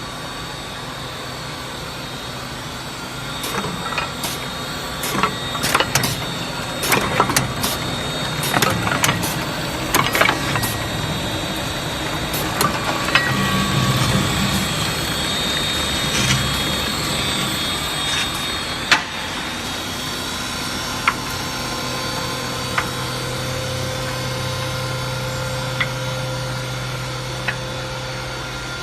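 Woodworking machine fitted with an automatic power feeder running steadily, with a string of knocks and clatter in the first half as the stock goes through, then a steadier hum with only occasional clicks.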